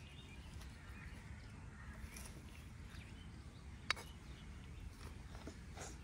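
Metal spoon scraping and tapping on small clay bowls as cooked rice is served, with one sharp tap about four seconds in and a lighter one near the end, over a faint steady low background noise.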